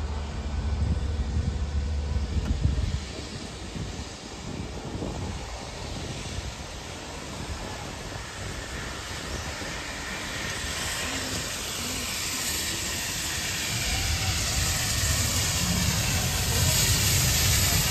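Steam locomotive 3801, a streamlined C38 class 4-6-2 Pacific, approaching along the line: a hiss of steam grows steadily louder through the second half, with a low rumble building near the end. A separate low rumble is heard in the first few seconds.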